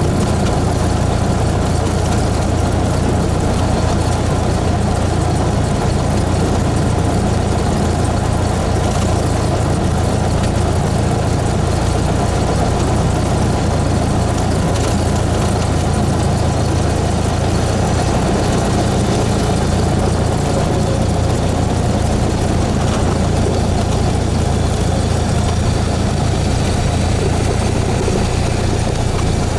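Cessna 172S's four-cylinder Lycoming engine and propeller running at a steady, deep, unchanging drone.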